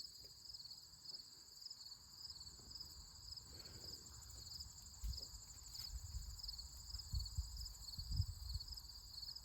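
Insects chirping in a steady, fast high-pitched pulsing trill, with low rumbles of wind on the microphone.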